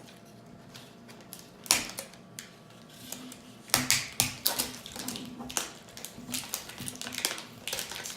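Plastic toy packaging being handled and opened: irregular crinkles and sharp clicks, starting about two seconds in and coming thickest past the middle.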